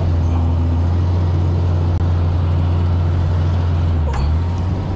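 A vehicle engine running with a steady low drone. There is a brief thin squeak about four seconds in.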